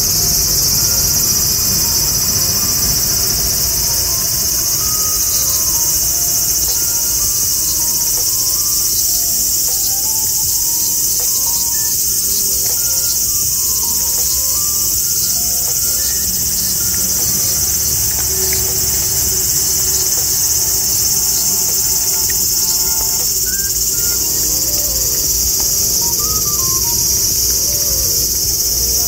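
Loud, steady chorus of insects: a shrill high-pitched buzz that holds without a break.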